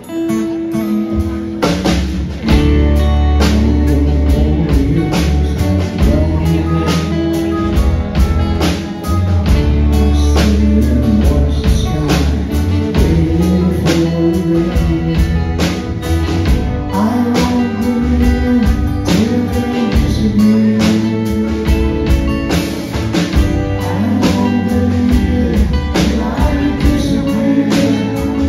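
Live band performing a song: strummed guitars over a strong bass line, with singing and a steady beat, the band coming in fuller about two and a half seconds in.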